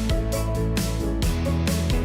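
Background music with a steady beat and strummed guitar.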